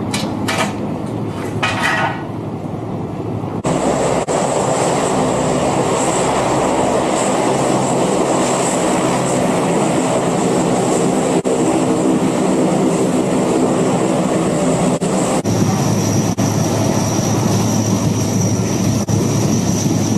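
Turbine helicopter engine and rotor running steadily, with a high whine over a dense, even drone. The sound changes abruptly about four seconds in and again about fifteen seconds in, where the whine drops to a lower pitch.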